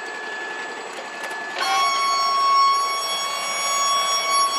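Wood-Mizer LT35 band sawmill running, a steady high whine. About a second and a half in it steps down in pitch and grows louder.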